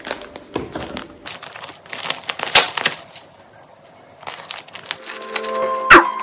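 Plastic parcel wrapping being handled and crinkled, a run of short crackles over the first three seconds, then a quieter stretch. Background music with steady held tones comes in about five seconds in, and a single loud sharp crack comes just before the end.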